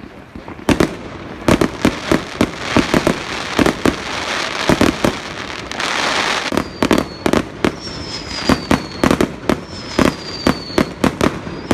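Fireworks display: a rapid run of sharp bangs starting about a second in, with dense crackling in the middle, and thin, slightly falling whistles over the bangs in the second half.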